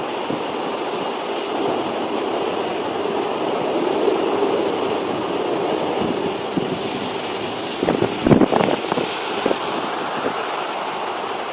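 Jet airliner engines in a steady roar, with strong gusts buffeting the microphone in a cluster of heavy thumps about eight seconds in.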